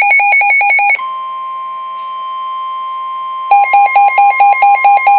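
Weather-alert tones: fast electronic beeping, about seven beeps a second, that gives way about a second in to a steady high tone, the NOAA Weather Radio warning alarm tone. About three and a half seconds in, the beeping starts again over the steady tone.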